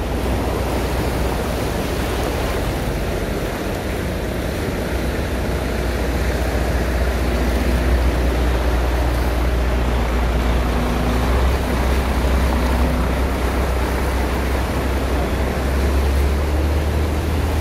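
Cars and then a Volvo lorry driving through a flooded street, their tyres sloshing and splashing through the standing water, over a steady low rumble that grows strongest near the end as the lorry passes.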